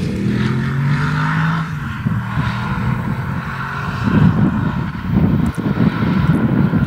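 Audi R8's naturally aspirated 4.2 FSI V8 engine and exhaust running. Its note sinks slowly over the first couple of seconds, then turns into a rougher, louder rumble from about four seconds in.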